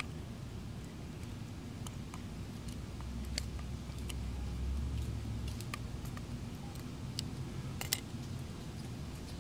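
Screwdriver working at the rusted-in star-head (Torx) screws of an idle air control valve on a throttle body, giving a handful of sharp, irregular metal clicks and scrapes over a low rumble.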